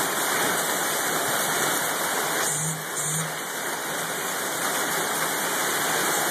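Hail and heavy rain falling on a gravel driveway and garden: a dense, steady hiss of pelting.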